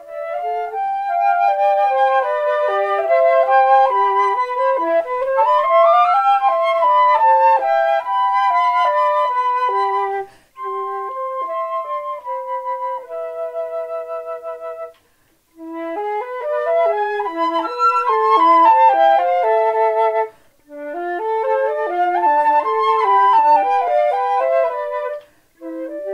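Two concert flutes playing a duet, their two parts moving together in quick runs of notes. The music breaks off briefly several times, and a softer passage of held notes comes around the middle.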